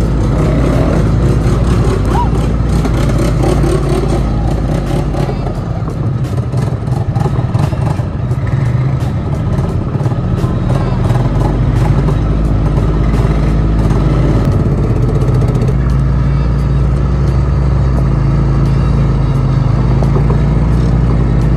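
ATV (quad bike) engines running steadily as the riders drive along a dirt track.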